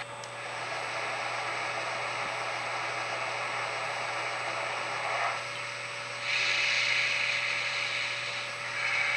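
Model train locomotive's onboard sound system playing its shut-down sequence: a steady hiss that drops back a little about five seconds in, then returns louder and higher for a couple of seconds.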